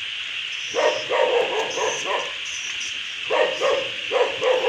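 A dog barking in two quick runs of barks, one about a second in and one past the middle, over a steady high hiss.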